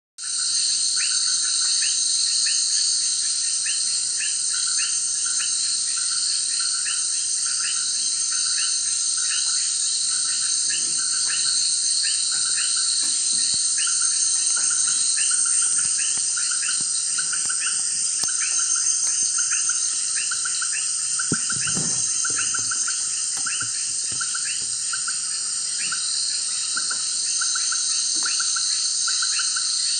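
Evening rainforest insect chorus: a dense, steady, high-pitched layered drone, with a short pulsed chirping call repeating about once a second over it.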